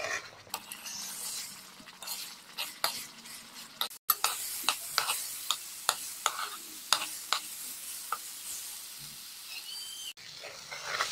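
Metal spatula stirring and scraping thick semolina halwa around a hot pan, with a steady sizzle of the ghee and many irregular scrapes and taps against the pan; the halwa is in its last stage of cooking, the water nearly cooked off.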